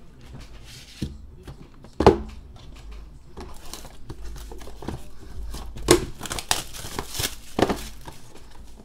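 Plastic wrapper being torn and crinkled off a sealed baseball card box: a run of irregular crackles, with sharper snaps about two seconds in and again around six and seven and a half seconds.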